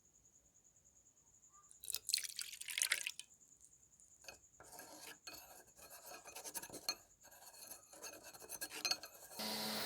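Scraping and rubbing on a small hard part for about a second, followed by scattered clicks and handling noises, then a small electric motor switches on near the end and runs with a steady hum.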